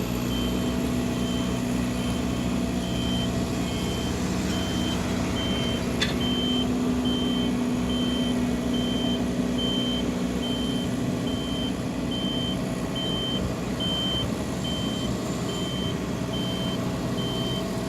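A vehicle's reversing alarm beeping evenly, about two beeps a second, over a diesel engine running steadily. A single sharp click sounds about six seconds in.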